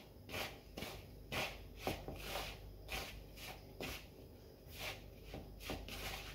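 Fingertips rubbing butter into flour in a bowl, the rubbing-in stage of shortcrust pastry: soft, repeated rustling strokes, roughly two a second.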